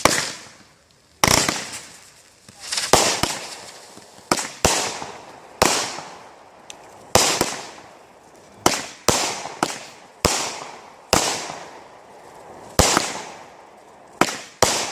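Backyard fireworks going off in quick, uneven succession: about fifteen sharp bangs, some nearly back to back, each trailing off over about a second.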